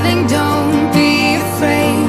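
Background music with a singing voice over sustained instrument chords.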